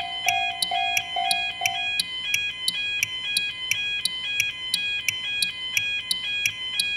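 Japanese railway level-crossing warning bells (electronic 'kan-kan' dings) sequenced into a music track. The dings strike evenly about three times a second over an alternating two-note pattern. A lower repeating tone drops out about two seconds in.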